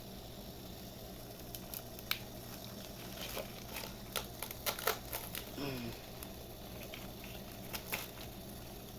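Leaves being handled and added to the remedy: a run of light crinkles and ticks with a short falling squeak partway through, over a steady low hum.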